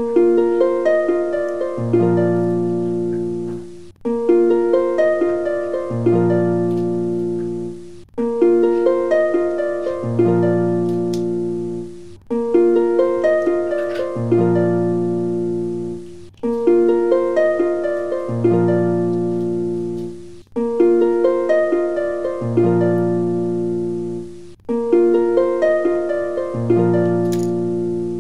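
Background music: a short plucked melody that loops about every four seconds, with a brief gap between repeats.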